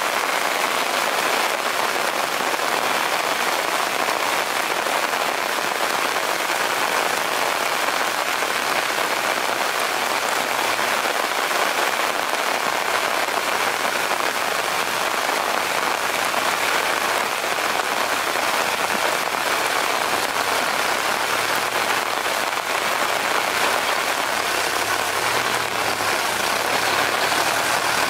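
Steady rain falling on mud and foliage, an even hiss.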